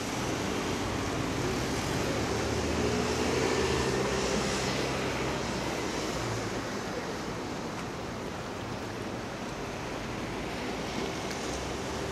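Steady outdoor ambience of road traffic, engines humming, over a hiss of wind and sea.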